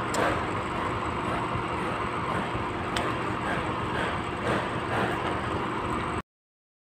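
Steady background rumble with a low hum and a couple of faint clicks; it cuts off suddenly about six seconds in.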